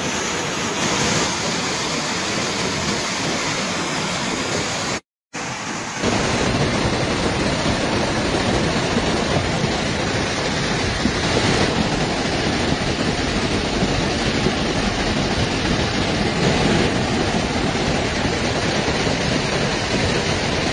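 Muddy flash-flood torrent rushing through a street, a loud steady rush of water. It cuts out for a moment about five seconds in, then resumes slightly louder.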